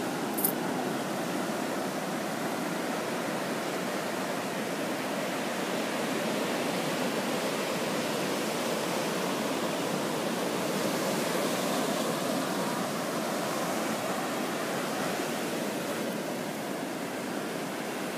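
Steady wash of ocean surf breaking on the beach, with a short sharp click about half a second in.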